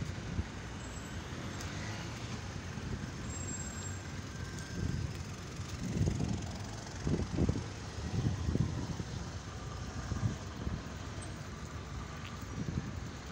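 Steady noise of car traffic on a congested city street, with several louder low rumbles in the middle.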